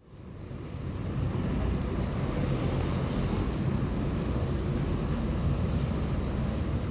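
Wind buffeting the microphone on board a moving vaporetto, a Venetian water bus, over the low steady drone of its engine and the rush of water. It fades in during the first second and then holds steady.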